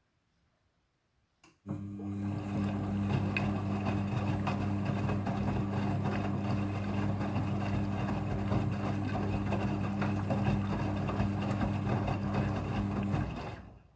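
Front-loading washing machine running in its rinse cycle, a steady electric hum over a noisy wash. It starts abruptly about a second and a half in and stops abruptly near the end.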